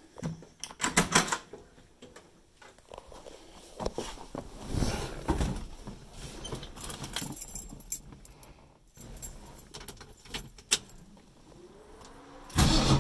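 Keys jangling and scattered clicks and knocks as someone settles into the driver's seat; near the end the engine cranks briefly and catches, a cold start of a 1968 Mustang's 310 small-block Ford V8, which comes in loud and keeps running.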